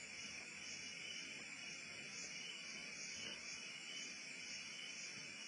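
Faint chorus of night insects: a high, shrill drone that swells and fades in a regular rhythm, with no pauses.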